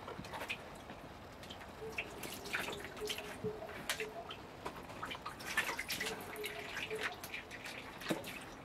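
Water splashing and dripping in a plastic basin as nutrias bathe and paddle in it: irregular small splashes and drips.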